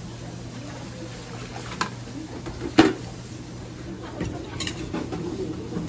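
Hot broth being ladled from a pot into stainless steel noodle bowls, with a sharp metal clank of the ladle about three seconds in and lighter clinks before and after, over a steady low hum.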